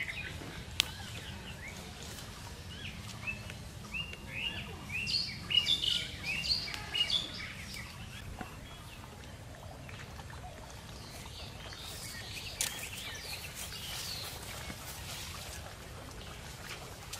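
Small birds chirping: a quick run of short, high calls from about three to seven seconds in, over faint steady outdoor background noise. A single sharp click comes just after the start.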